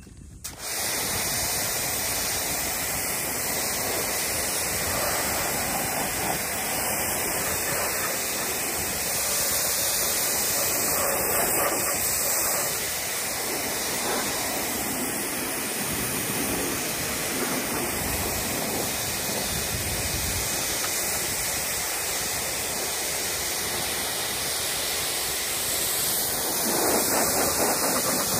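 Small electric Kärcher Mini pressure washer running, its water jet hissing steadily as it sprays the boat trailer frame; it starts about half a second in and gets a little louder near the end.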